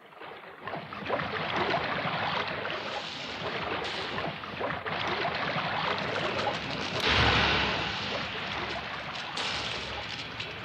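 Radio-play sound effect of a loud, steady rushing noise. It rises in out of near silence over the first second, and a deeper surge swells about seven seconds in.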